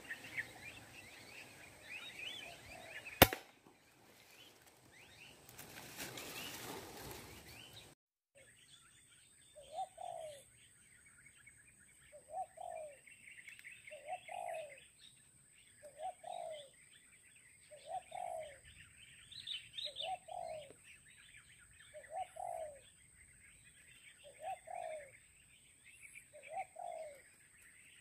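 A single sharp crack of a PCP air rifle shot about three seconds in. After that a dove coos over and over, one short coo about every two seconds, over high chirping of small birds.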